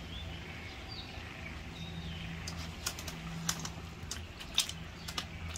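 A run of sharp, irregular clicks over a steady low hum, with a few faint chirps in the first seconds.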